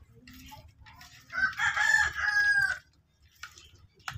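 A rooster crows once, a single long call of about a second and a half starting a little over a second in, over faint sounds of a hand rubbing fish in a steel bowl.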